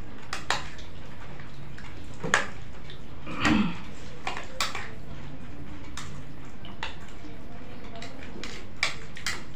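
Spoons clicking and scraping against small bowls as several people eat chaat quickly, in scattered sharp clicks. A short murmur of a voice comes about three and a half seconds in.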